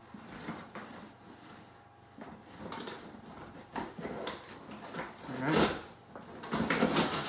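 Cardboard shipping box rustling and scraping in uneven bursts as a small dog noses and digs into it; the loudest bursts come about five and a half seconds in and near the end.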